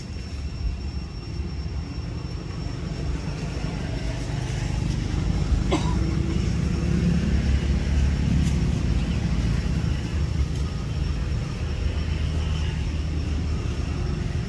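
Low, steady engine rumble of distant motor traffic, growing louder about a third of the way in and holding, with a thin steady high whine above it.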